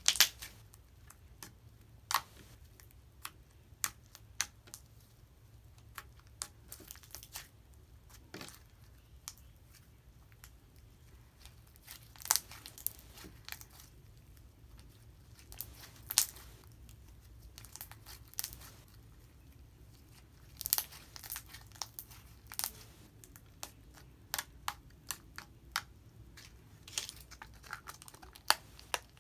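Green jelly slime being pressed, kneaded and poked by hand on a countertop, giving irregular sticky pops and crackles, a few sharp and some in quick clusters.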